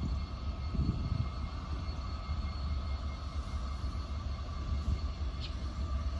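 Low, steady rumble of an approaching Union Pacific freight train's diesel locomotives, with a faint steady whine above it.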